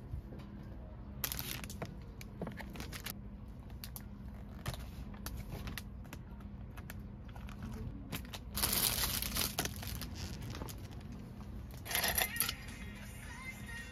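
Thin plastic produce bag crinkling as it is handled, in three bursts: one about a second in, a longer one about eight and a half seconds in, and a short one near the end. Small clicks and taps of plastic come in between.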